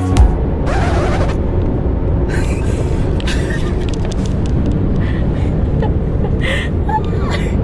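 Steady low rumble of a car on the move, with a short hiss about a second in.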